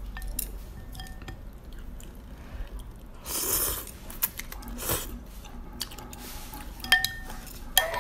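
Noodles slurped from a bowl of soup in one long slurp about three seconds in, with chewing and the chopsticks and spoon clicking against the bowl.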